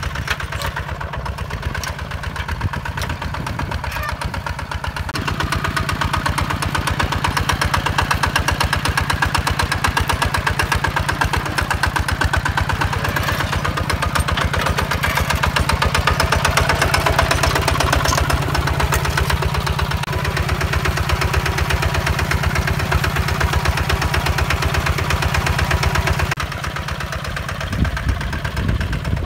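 Single-cylinder diesel engine of a HINOTA HG Gold 155 DI walking tractor running steadily under load as its rotary tiller churns dry soil, with a rapid, even firing beat. It grows louder for most of the middle stretch and drops back again near the end.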